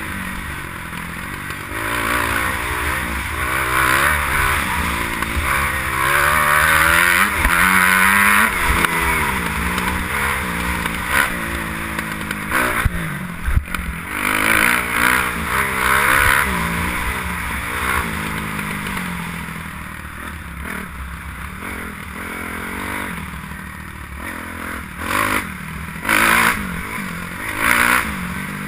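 Kawasaki KX250F motocross bike engine revving up and down as the bike is ridden hard round a dirt track, picked up by a helmet-mounted camera. Sharp knocks and rattles come through midway and again near the end.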